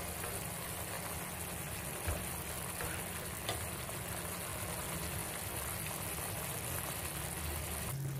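Tomato sauce simmering with fried mackerel in a pan, a steady bubbling and sizzling hiss, with a couple of faint clicks.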